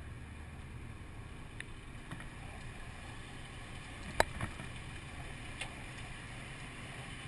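Steady low rumble of a car driving slowly, heard from inside the cabin: engine and road noise. A single sharp click about four seconds in, with a few fainter ticks around it.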